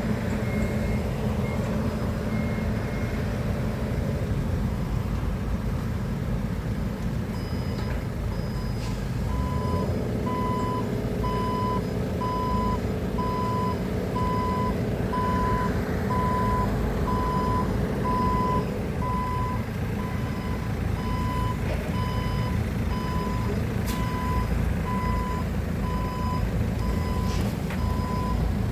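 A heavy machine's engine running with its reverse alarm beeping. A higher-pitched beep repeats for the first few seconds, then a lower beep sounds about every half second from about eight seconds in.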